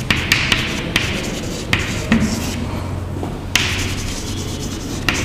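Chalk writing on a chalkboard: sharp taps as the chalk strikes the board, and several scratchy stretches of writing strokes, over a steady low hum.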